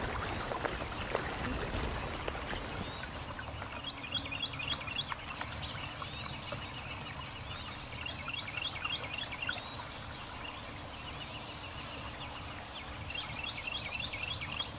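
Small birds singing in several bursts of quick, high chirping trills over a steady low rush of outdoor background noise.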